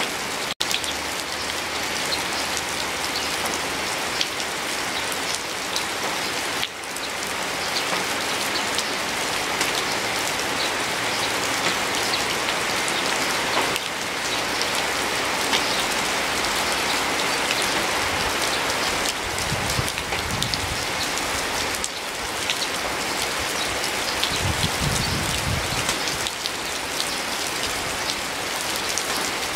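Steady, heavy rain falling, a dense even hiss with close patter of individual drops. A low rumble comes in twice during the second half.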